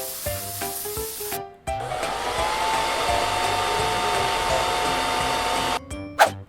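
Hair dryer blowing steadily for about four seconds, its whine rising as it starts and then holding. It comes in after a few notes of light background music, which cut off about a second and a half in.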